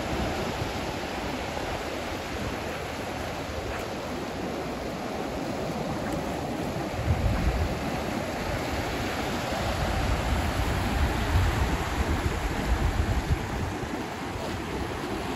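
Ocean surf washing up the beach, a steady rushing, with low gusts of wind on the microphone now and then.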